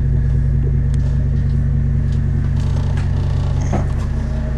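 Patrol boat's engines idling with a steady low rumble, with a few light knocks of footsteps on the deck.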